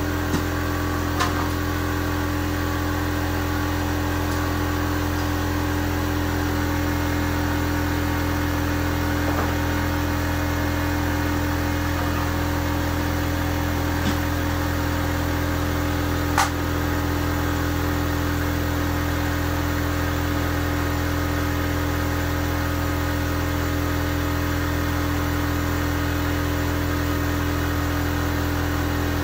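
A machine running with a steady hum, with a few brief clicks and one sharper click about sixteen seconds in.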